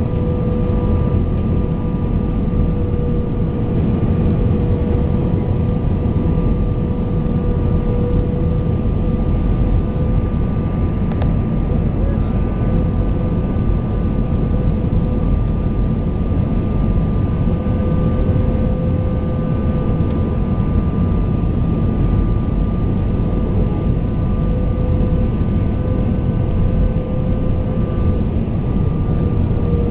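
Airbus A320 cabin noise: a steady low drone of the jet engines and airflow, with a few steady whining tones over it, heard from inside the passenger cabin.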